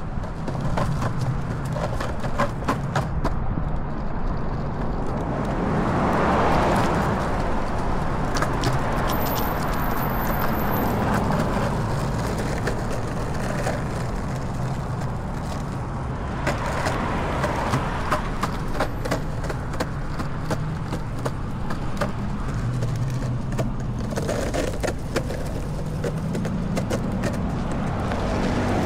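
Longboard wheels rolling on a concrete sidewalk: a steady rumble with frequent sharp clicks as the wheels cross the pavement seams, swelling louder a few times.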